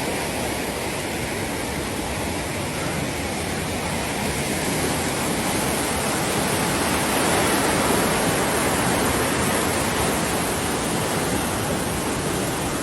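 Floodwater rushing past in a steady, loud, dense roar of noise.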